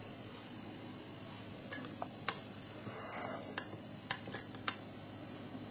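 About eight sharp, irregular clicks of computer controls being worked, spread from under two seconds in to near the end, over a steady background hiss.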